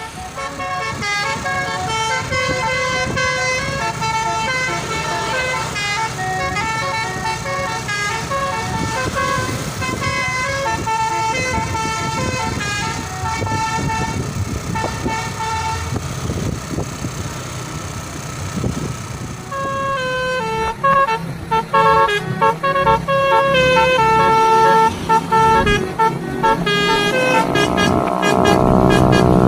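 Basuri multi-tone musical horn on a tour bus playing a tune in short, steady notes, over the low rumble of the bus. The tune breaks off about two-thirds of the way through and starts again louder, and a rising sweep comes in near the end.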